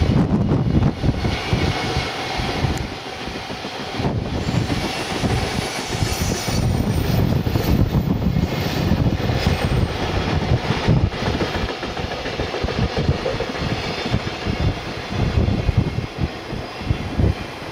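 Container freight train rolling past, its flatcars' wheels rumbling steadily on the rails.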